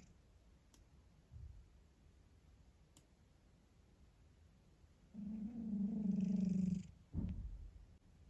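A sleeping domestic cat snoring: one long steady snore about five seconds in, lasting nearly two seconds, then a short falling breath.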